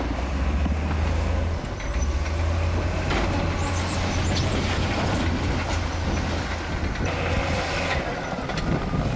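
Bulldozer's diesel engine running steadily with a strong low drone, with scattered knocks and scrapes from the blade and tracks working rock.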